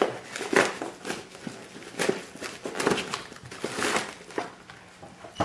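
Packaging rustling and crinkling in irregular handfuls as a shipping package is handled and opened by hand.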